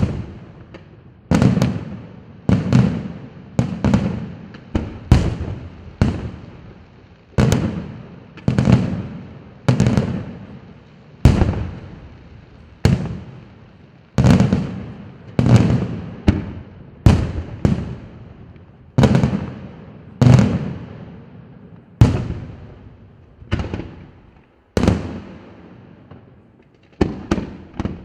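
Aerial firework shells bursting in quick succession, about one or two booms a second, each dying away over about a second.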